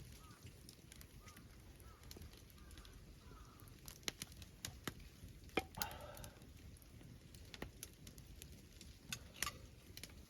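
Burning wood crackling faintly, with sparse irregular pops and snaps.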